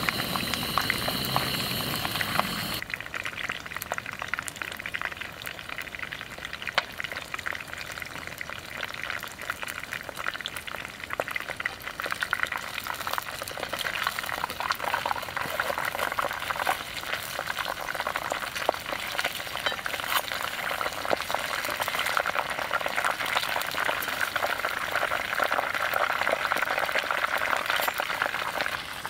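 Food cooking over heat: a dense, crackling sizzle and bubbling that grows louder in the last few seconds. For the first three seconds a steady high-pitched buzz with a low rumble is heard, and it cuts off abruptly.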